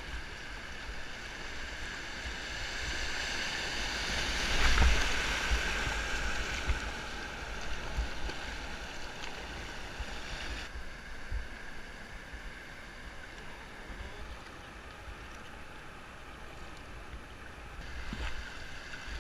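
Whitewater river rushing around a kayak, with paddle splashes and some wind on the microphone. The water is loudest about five seconds in and turns abruptly duller about halfway through.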